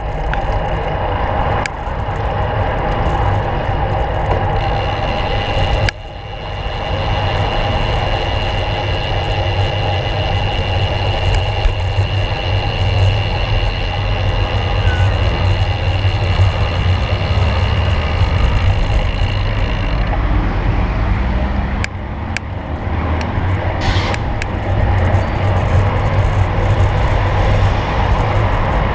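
Riding a road bicycle through city traffic, heard from a handlebar-mounted camera: steady wind rumble on the microphone mixed with the engines and tyres of cars and vans alongside.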